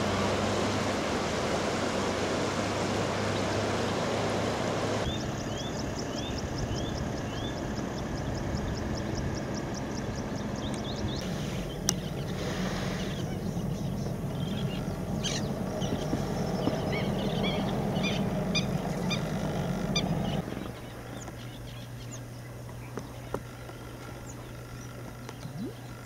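Steady rush of flowing river water, then wild birds calling: a run of quick high chirps repeated several times a second, followed by scattered calls and clicks.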